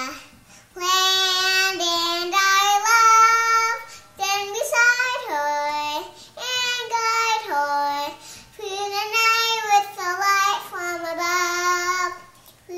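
A young girl singing unaccompanied: several phrases of held notes that step up and down in pitch, with short breaths between them.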